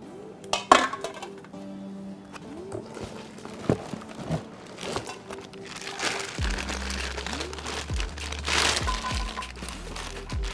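Plastic wrapping crinkling and rustling, with a few knocks, as a plastic-wrapped stainless steel rice cooker pot is handled and lifted out of its cardboard box, over background music. A sharp knock comes near the start, and the crinkling is densest in the second half.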